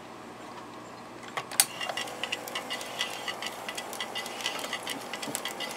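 Aiwa TP-719 reel-to-reel tape recorder started into record: a sharp click about a second and a half in as the transport engages, then the mechanism runs with a rapid ticking and a faint steady hum.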